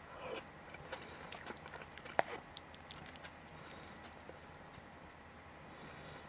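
Someone chewing a mouthful of hashed beef and rice, with small wet mouth clicks and one sharp click about two seconds in. A metal spoon scoops rice in a plastic takeout container.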